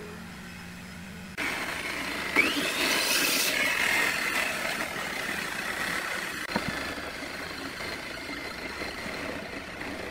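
Steady machine noise that cuts in suddenly about a second and a half in, over a low electrical hum, with a brief whine sweeping up and down about a second later.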